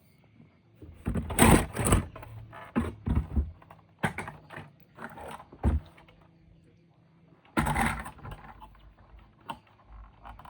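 Plastic toys and packaging being handled: irregular clicks, knocks and rustles, loudest about a second and a half in and again near eight seconds.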